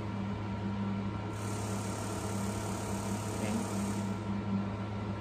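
EMS pelvic-floor stimulation chair running in its FM sine mode: a steady low electrical hum with a buzz on top that swells and fades in repeated pulses. A steady hiss joins about a second in and stops about three seconds later.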